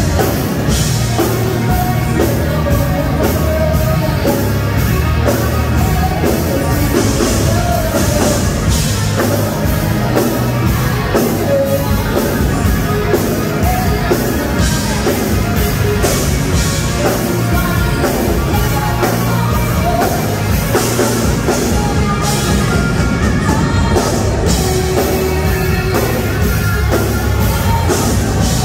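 Live rock band playing loud: a woman singing over electric guitars, keyboard and a drum kit.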